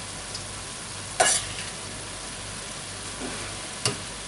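Vegetable filling with garlic and onion frying in a pan with a steady sizzle as its juices cook out. A utensil knocks sharply against the pan twice, about a second in and near the end.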